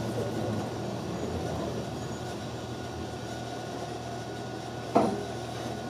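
Steady low drone of a city route bus heard from inside the cabin, with one short knock about five seconds in.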